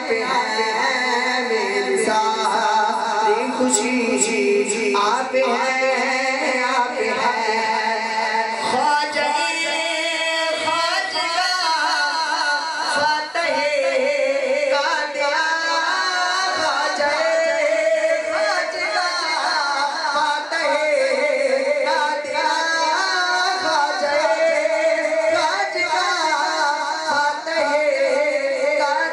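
A man's voice singing devotional verses unaccompanied into a microphone through a PA system, in long melodic lines that glide up and down with hardly a break.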